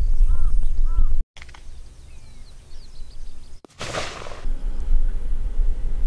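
A single blank shot fired to scare a black kite away from the runway, heard about four seconds in as a short burst that dies away within a second. Wind rumbles on the microphone around it, with faint bird chirps, and the sound cuts out briefly twice.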